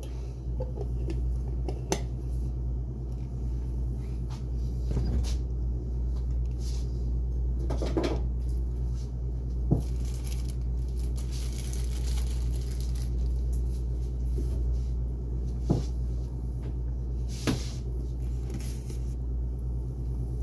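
Steady low hum with scattered short knocks and clicks of objects being handled.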